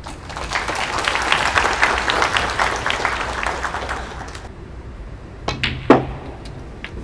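Audience applauding for about four and a half seconds, then a few sharp clicks of snooker balls near the end.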